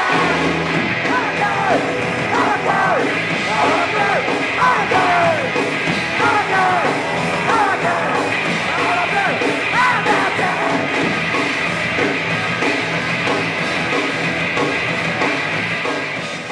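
Hardcore punk band playing live: shouted vocals over distorted guitar, bass and drums. The shouting drops out about two-thirds of the way through, and the music starts to fade at the very end.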